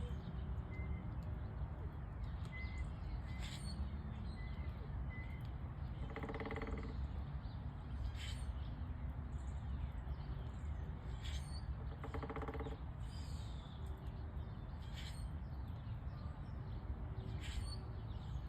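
Woodpecker drumming on wood: two short rapid rolls of knocks, each under a second, about six seconds apart. A steady low rumble and a few faint chirps run underneath.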